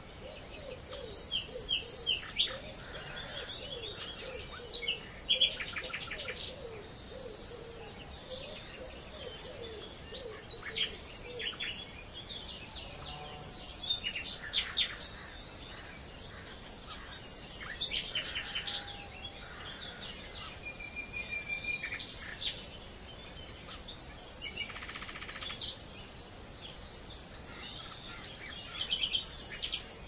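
Morning birdsong: one songbird repeats the same high phrase, a quick run of notes falling in pitch, about every five to six seconds, among other birds' chirps and trills. A low, wavering call runs under it through the first dozen seconds.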